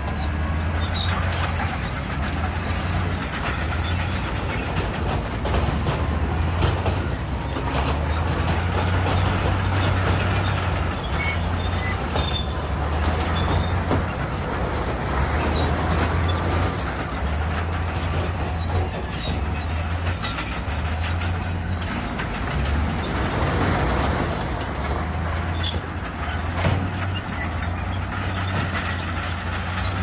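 Heavy diesel earthmoving machinery at work: a deep engine drone that swells and eases, under a rough, noisy layer with scattered knocks.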